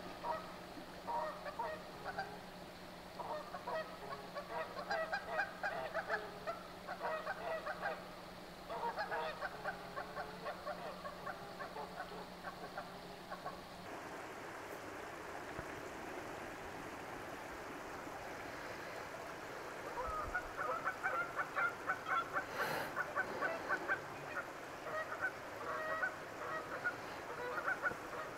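Canada geese honking in bouts of rapid, repeated calls, with a lull of several seconds in the middle before the calling starts again.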